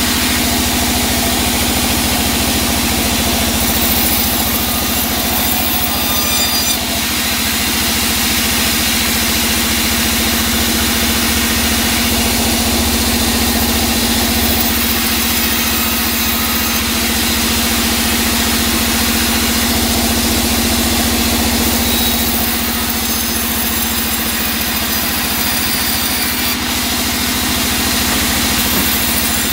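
Large vertical band saw running steadily, its blade ripping through teak wood fed by hand, with a constant machine hum under the rasp of the cut.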